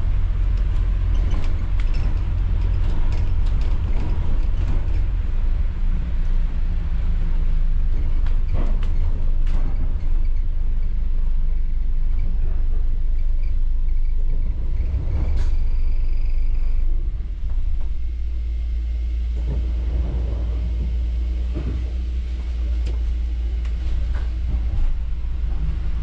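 Low rumble of a double-decker bus driving, heard from inside on the upper deck, with scattered knocks and rattles from the bodywork. A brief high whine comes just past the middle. About two-thirds of the way through, the rumble settles into a quieter, steadier hum.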